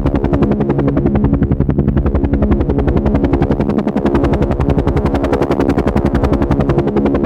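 Helicopter flying, its rotor blades beating in a fast, steady pulse of about ten beats a second over a steady engine hum.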